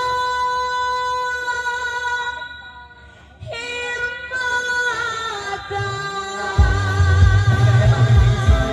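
Live band music with a singer holding long, wavering notes; the sound drops away briefly about three seconds in, then the voice returns, and a heavy bass line and drums come in near the end.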